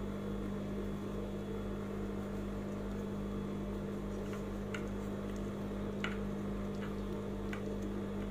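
Steady electric hum of an industrial sewing machine's motor left running while the needle is still, with a few faint light clicks from handling lace on the machine table.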